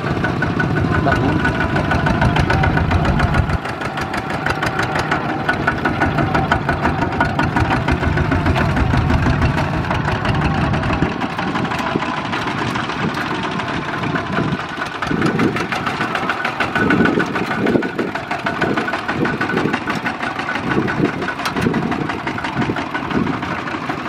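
Several two-wheel walking tractors' single-cylinder diesel engines chugging steadily as they pull trailers loaded with rice sacks past. The nearest engine's deep low thudding drops away about eleven seconds in as it goes by, leaving the quicker, lighter chugging of the others.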